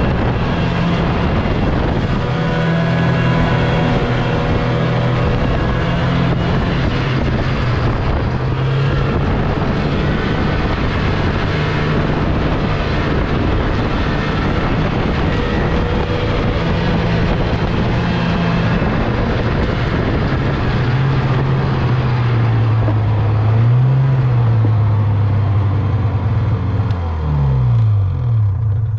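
Snowmobile engine running steadily while riding. Its pitch wavers in the second half and drops near the end as it slows down.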